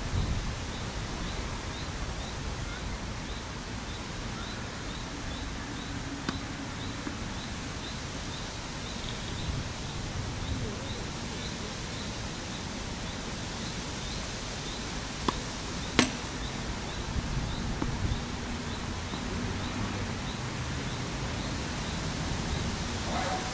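Steady outdoor background noise with a faint high chirp repeating about twice a second, and a few sharp knocks, the loudest about sixteen seconds in.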